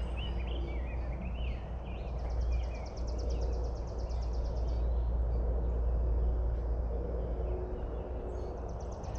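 Spring woodland ambience: songbirds chirping and warbling, with a rapid high-pitched trill about two seconds in and again near the end, over a steady low rumble.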